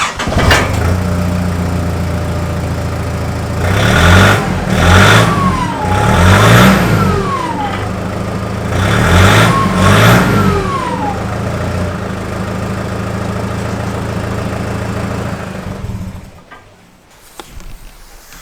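Nissan GU Patrol's ZD30 3.0-litre four-cylinder turbo-diesel, with a 3-inch aftermarket exhaust, starting and settling to idle. It is revved in about three quick blips around four seconds in and twice more around nine seconds, idles between, and is switched off about sixteen seconds in. This is a check for an exhaust rattle against the hanger bracket, and the owner judges the fix a success.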